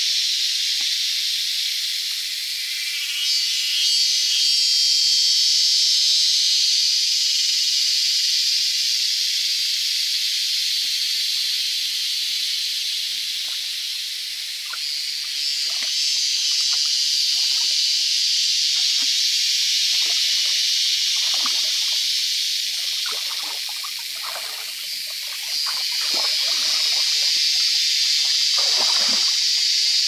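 A loud, steady, high-pitched insect drone that swells and fades every several seconds. From about the middle, shallow muddy water splashes and sloshes as someone wades in and gropes in it with bare hands.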